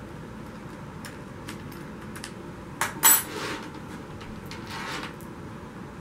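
Loose steel saw chain clinking as it is lifted off a tile floor: a sharp clink, then a short metallic jangle about three seconds in, and a softer rattle of the links near the end, amid small handling clicks.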